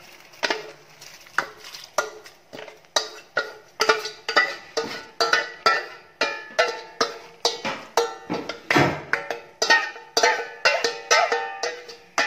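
Background instrumental music: a steady run of plucked or struck notes, about three a second, each ringing briefly.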